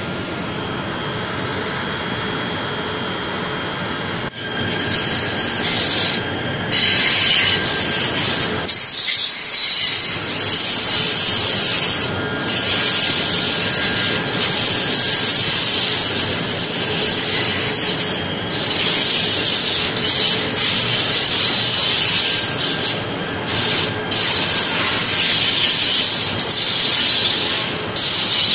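KTM Komuter electric multiple unit running through the station. From about four seconds in, the wheels set up a loud, high-pitched rubbing squeal on the rails that drops out briefly every few seconds.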